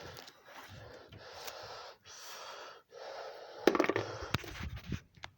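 A person breathing loudly, with long gasping breaths, then a quick run of clicks and knocks.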